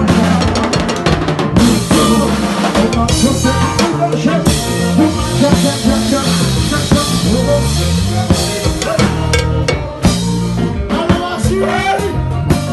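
Live kompa band playing, with an electric bass line to the fore, sliding between notes, over a drum kit. Cymbals wash over the groove until they drop away about ten seconds in.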